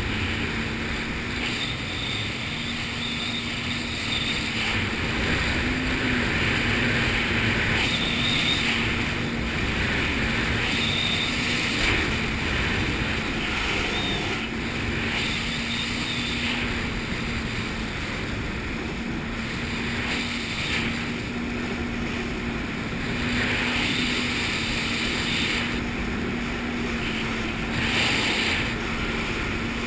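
Jet ski engine and jet pump running at a steady cruising speed, a constant drone holding one pitch, mixed with rushing wind and water noise.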